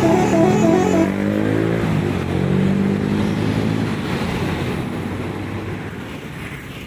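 A bus's telolet horn playing a warbling, repeating tune that cuts off about a second in. The bus's engine follows, dropping in pitch and fading as it passes and moves away.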